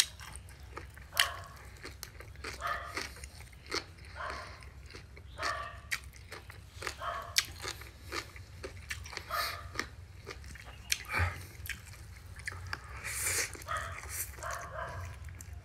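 Close-up eating sounds from a bowl of rice noodles with grilled pork: irregular chewing, lip smacking and crunching, with a slurp of rice noodles near the end.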